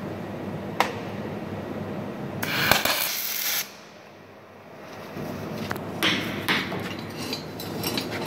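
MIG welding arc crackling and hissing on thick mild steel for about a second, starting about two and a half seconds in, over a steady workshop hum. Scattered metallic clicks and clanks follow in the second half.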